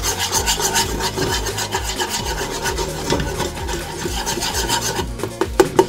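Metal wire whisk scraping rapidly and rhythmically round the bottom of a pot, working water into a thick butter-and-flour roux paste. A few sharp clicks near the end.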